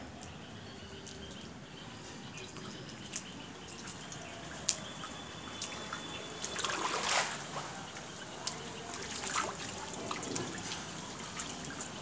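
Water dripping and trickling, with scattered sharp drips and a brief louder rush of noise about seven seconds in.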